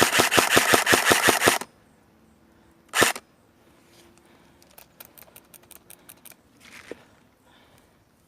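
Airsoft electric rifle firing a full-auto burst of about a second and a half at roughly ten shots a second, then a single shot about three seconds in. Fainter rapid shots follow about five seconds in.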